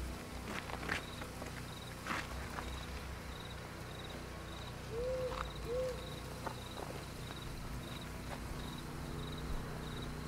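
A cricket chirping steadily at about two chirps a second, with scattered footsteps scuffing on gravel. About five seconds in come two short low tones that rise and fall, the loudest sounds here.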